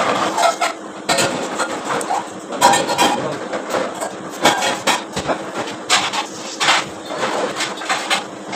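Irregular sharp clicks and knocks of kitchen work, a few each second at uneven spacing, over a steady low hum.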